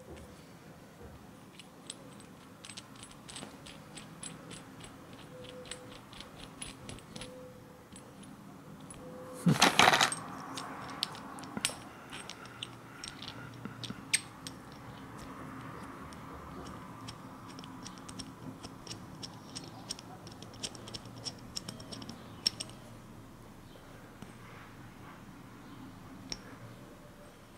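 Small metal tool parts clicking and clinking as they are handled and fitted together: the aluminium blocks and steel pins of a timing-belt locking tool set. A run of light ticks, a louder clatter about ten seconds in, then more scattered clicks.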